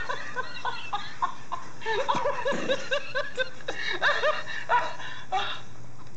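Laughing monkey plush toy playing its recorded laughter: short, chattering hee-hee cries in irregular runs, with a quick string of them in the middle.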